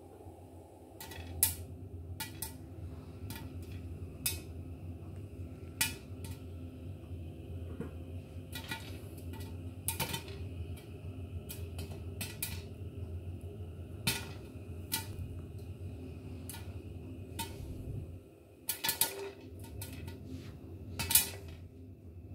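Popcorn kernels popping in a frying pan under a glass lid, each pop a sharp, separate click or ping against the lid. The pops come irregularly, one every second or two, with a quick cluster near the end, over a steady low hum.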